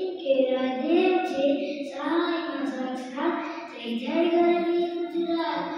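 A boy's voice chanting a Gujarati poem in a sing-song melody, in phrases of about a second with held notes and short breaks between them.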